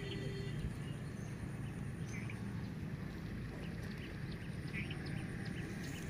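Outdoor ambience: a steady low rumble with short, faint bird chirps scattered through it.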